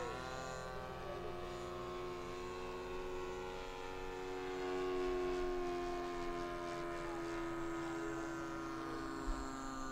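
Engine of a radio-controlled model airplane in flight, a steady pitched drone that dips slightly in pitch at the start and grows louder about halfway through as the plane passes.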